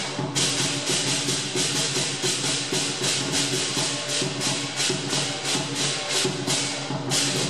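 Lion dance percussion: cymbals clashing in a fast steady beat, about four to five crashes a second, over drum and gong, with a steady ringing underneath.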